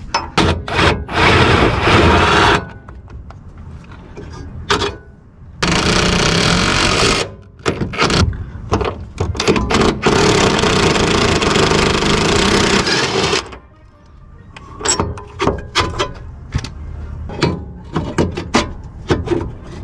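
Cordless impact wrench hammering in about four bursts of one to three seconds on the bolts of a car's rear toe arm as they are taken off. Scattered sharp clicks and taps of metal parts follow in the last few seconds.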